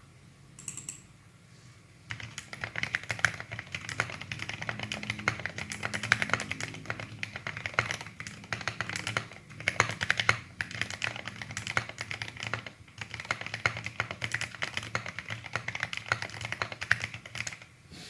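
Typing on a DROP x OLKB Planck ortholinear mechanical keyboard, built with an aluminum case and plate, PE case foam, lubed Gateron Milky Yellow linear switches and MA profile keycaps. After a couple of isolated key presses, fast continuous typing starts about two seconds in, with one brief pause.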